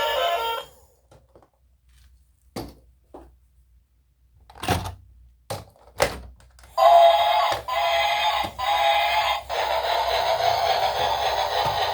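Background music stops, followed by a few separate light knocks, then from about seven seconds in a steady, buzzy electronic-sounding tone with a few brief breaks.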